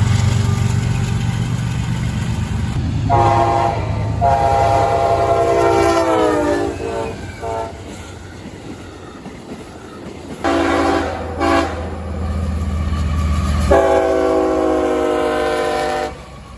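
Amtrak Auto Train locomotive's multi-note air horn sounding a series of blasts over the low rumble of the passing train: a long blast whose pitch drops as the locomotive goes by, two short blasts, then a long final blast that cuts off suddenly.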